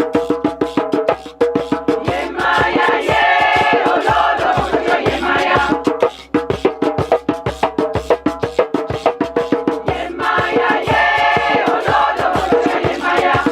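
Live music: a group of voices singing in two stretches, over a fast, steady percussion beat that ticks several times a second.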